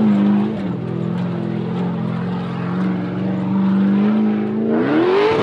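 Ultra4 race car's engine running at a steady pitch as it crawls over boulders, then revving up sharply near the end and dropping back.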